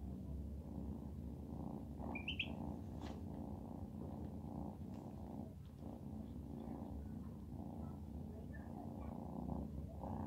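Kitten purring steadily and contentedly while it dozes, a continuous rapid low pulsing. One brief high chirp about two seconds in.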